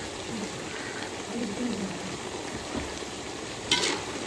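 Chicken and liver pieces frying in oil with spices in a pot, a steady sizzle as they are stirred, with a brief louder clatter near the end.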